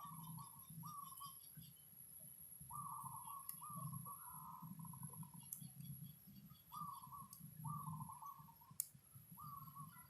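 A bird's short warbling calls, repeated every second or so with a couple of pauses. A few sharp clicks, typical of magnetic balls snapping together, come in between.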